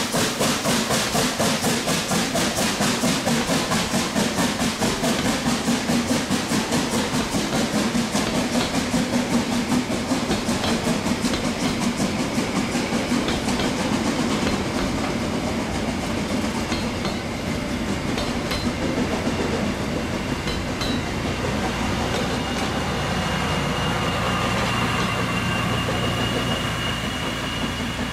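Harz narrow-gauge steam tank locomotive pulling away with a fast, even beat of exhaust chuffs that fades after about halfway. Its coaches then roll past with the clickety-clack of wheels over rail joints, and a thin, high wheel squeal comes in near the end.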